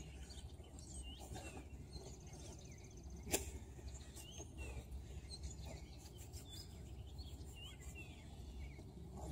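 Songbirds chirping and calling again and again over a low wind rumble, with one sharp click about three seconds in.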